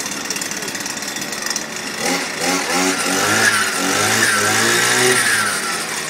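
Petrol brush cutter engine running, then revved up about two seconds in. It is held high with the pitch rising and falling, and eases off near the end.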